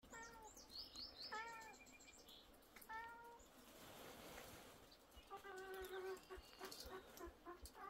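A domestic cat meowing faintly: three separate short meows in the first three seconds, then a run of short, quick repeated calls in the second half.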